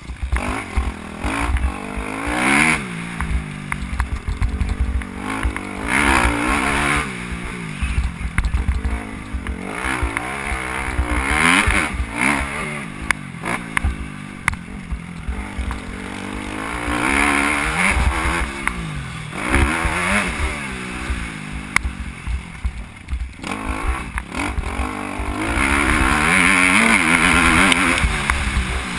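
Motocross bike engine heard from a camera mounted on the bike during a lap. It revs up and drops back over and over as the rider accelerates, shifts and rolls off for corners.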